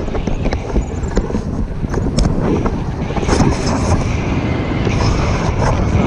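Loud, uneven wind noise buffeting the microphone in a strong wind, with a few sharp clicks.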